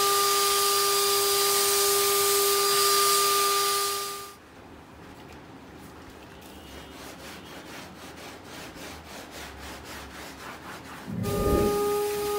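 Vacuum cleaner motor running with a steady whine over a loud hiss of suction, cutting off abruptly about four seconds in. A quieter stretch of faint, regular rubbing strokes follows, then the vacuum starts up again with a thump near the end.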